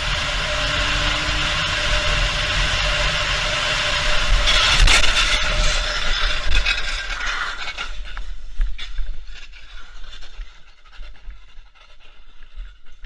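Steady road and wind noise of a vehicle moving fast, then about four and a half seconds in a loud crash with scraping that dies away over the next few seconds into scattered knocks and clicks.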